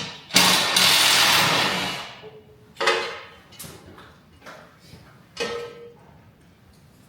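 A loud rushing mechanical noise lasting about a second and a half, then two sharp metal clanks that ring briefly, with a few lighter knocks between them.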